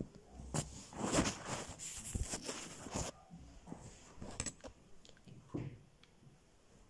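Rustling and handling noise as makeup items are rummaged out of a zippered makeup bag, heaviest in the first three seconds, then a few sharp clicks and a soft knock as the items are picked up.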